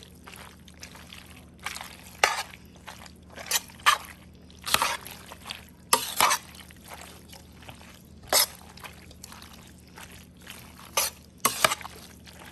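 Metal spoon stirring a thick, creamy pot of bow-tie pasta and cheese: irregular wet squishes, with the spoon scraping and knocking against the pot about once a second.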